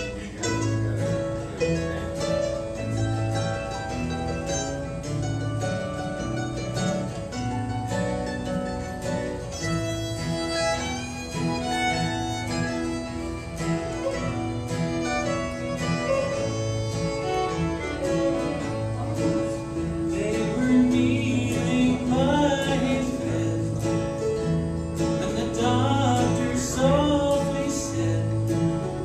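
Live bluegrass band playing acoustic guitars, fiddle, mandolin and banjo together, with a steady bass beat under the strings.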